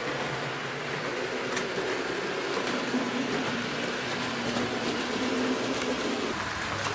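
H0-scale model trains running through a track helix: a steady rumble of wheels on the rails with the hum of the locomotive motors.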